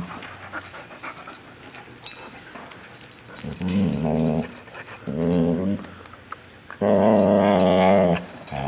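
Poodles wrestling in play and growling: three low, drawn-out growls, the last one, near the end, the longest and loudest.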